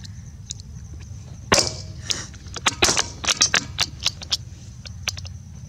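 Marlin XT-22 bolt-action .22LR rifle being handled between shots: a sharp crack about one and a half seconds in, then a quick run of small metallic clicks.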